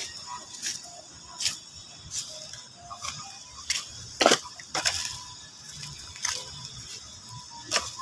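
Irregular sharp crunches and crackles of plastic bottles and dry litter being stepped on or handled in grass, the loudest about four seconds in.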